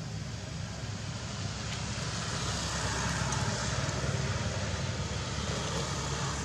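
Steady outdoor background noise: a low rumble with a hiss over it, swelling slightly in the middle.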